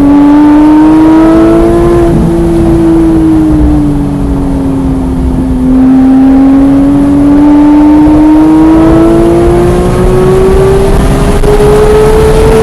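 Porsche 991.1 GT3's flat-six engine running hard on track: its pitch climbs for about two seconds, sags back over the next few seconds, then rises steadily and long under full throttle.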